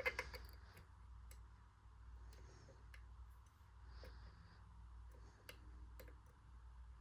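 Small metallic clicks and ticks of a dimple pick working the pins of a six-pin CISA dimple lock. A quick cluster of clicks comes at the start, then single clicks every second or so.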